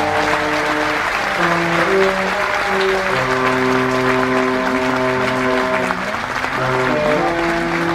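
Audience applauding over slow music of long held chords that shift every second or so.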